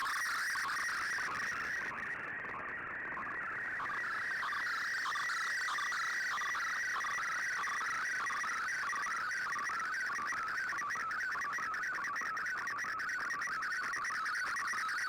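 Digital-mode data tones of a shortwave broadcast heard through a receiver: a dense band of rapidly shifting tones over shortwave hiss. The signal briefly fades about two seconds in, then recovers.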